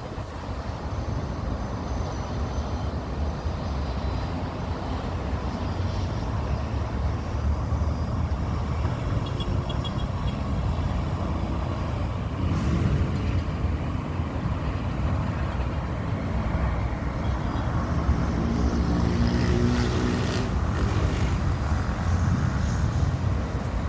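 Steady city street traffic, with a heavier vehicle's engine passing around the middle and again later on.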